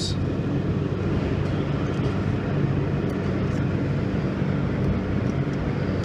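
Steady low engine drone running evenly, with a few faint clicks.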